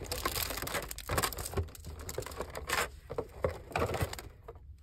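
Hands handling trading cards, foil pack wrappers and a clear plastic box tray: an irregular run of small clicks, taps and rustles.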